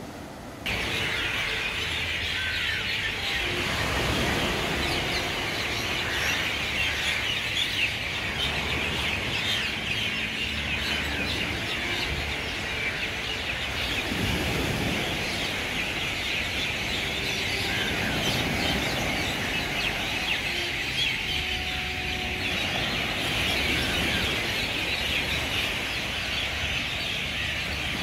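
A dense, steady chorus of many birds chirping, with small waves washing onto the beach underneath and swelling now and then. It all starts suddenly about a second in.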